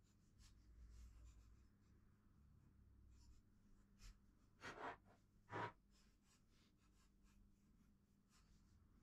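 Near silence: faint soft clicks and scratches of small hand work with fine wires and tweezers, over a faint low hum, with two brief louder rustles about halfway through.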